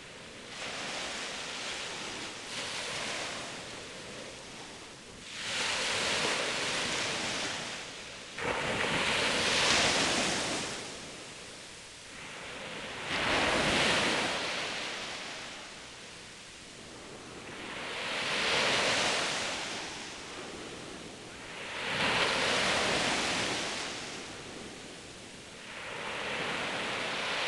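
Small sea waves breaking on a beach and washing up the shore, the surf noise swelling and falling away every four seconds or so.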